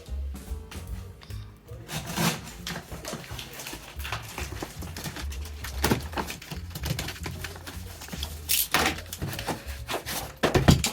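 Background music with a steady low beat, with clicks, knocks and rustles of packaging being handled as a mechanical keyboard's box is opened.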